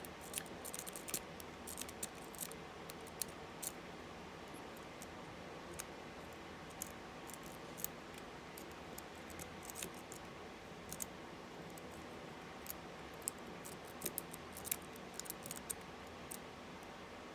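Light metallic clicks and scratches of a lock pick and tension wrench working in the keyway of an Abus 64TI 30 mm padlock, irregular and scattered, busier in the first few seconds and again near the end.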